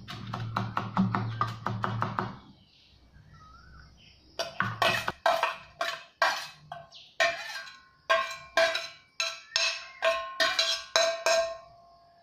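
A kitchen knife chopping green chillies on a wooden board in quick, regular strokes for about two seconds. After a short pause, a metal spoon knocks and scrapes against a stainless steel plate and bowl a dozen or so times, the steel ringing after each knock.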